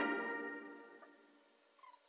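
Background music ending, its last held notes ringing out and fading to near silence about a second in. A faint brief high sound near the end.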